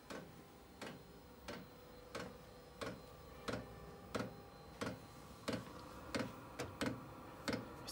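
Diesel air heater's fuel dosing pump ticking steadily, about one and a half clicks a second, as it meters diesel to the burner at start-up.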